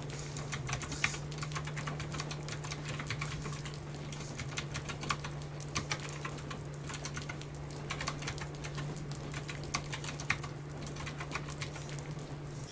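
Continuous typing on a keyboard with round retro keycaps: a quick, uneven stream of key clacks, over a steady low hum.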